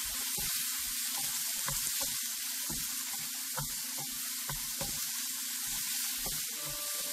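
Chopped tomatoes and onions sizzling steadily in hot oil in a frying pan, with a wooden spatula knocking and scraping the pan at irregular intervals as they are stirred.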